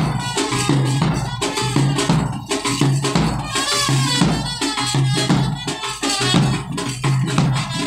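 Indian brass band playing: a trumpet carries a melody over a steady beat of bass drum, snare drum and small hand percussion.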